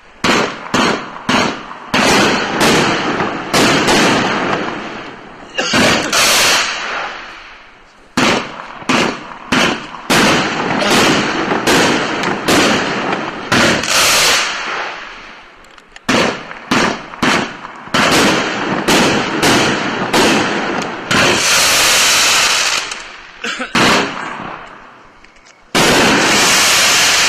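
A 32-shot consumer fireworks cake (Winda 'The Most Wanted', P5468) firing its shots: sharp bangs in quick groups of several at a time, each fading off, with two longer stretches of dense steady noise near the end.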